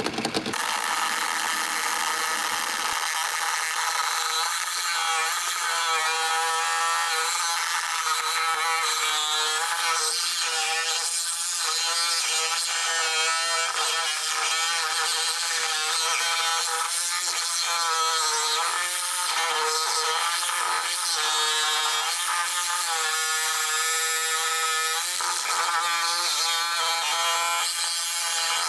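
DeWalt 20V cordless reciprocating saw with a bi-metal blade running continuously as it cuts through the layered hardened strip steel of a catalytic-converter strap on an exhaust pipe. The footage is sped up, so the saw's whine sits high and wavers in pitch as the cut goes on.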